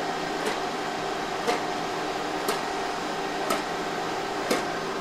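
Steady hum of a powered-up Plasmon D-series optical disc library with its fans running, and a sharp tick about once a second, five in all.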